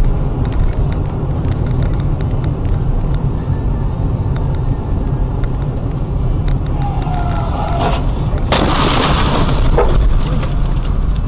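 Car collision heard from inside a vehicle: a steady road-and-engine rumble, a brief squeal near seven seconds in, then a loud crash about eight and a half seconds in that lasts around a second and a half.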